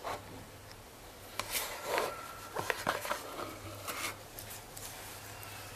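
Handling noise as a stainless steel Seiko 5 watch on its fabric pillow is lifted out of its box: a cluster of sharp clicks and clinks with rubbing and rustling, over a steady low hum.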